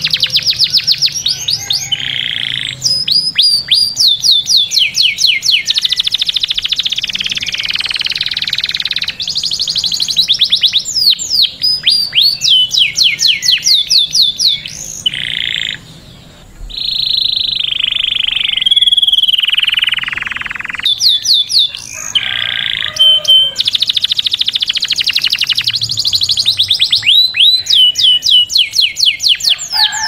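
Domestic canary singing a long song of fast rattling trills and rapid repeated notes broken by held whistled notes, with a short pause about halfway through.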